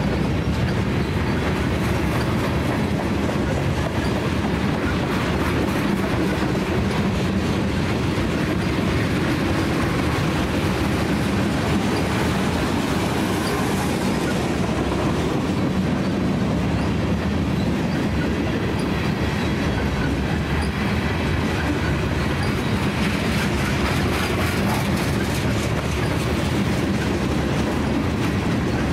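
Freight cars of a Union Pacific manifest train, tank cars and covered hoppers, rolling steadily past close by. The steel wheels rumble on the rail with a repeating clickety-clack of wheels over the track.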